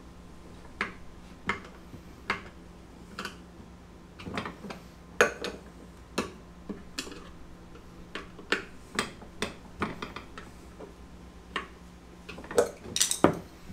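Light metallic clicks and ticks of a screwdriver working a bolt and nut on the cart's steel frame as the bolt is tightened down, coming irregularly every half second to a second, with a quicker run of clicks near the end.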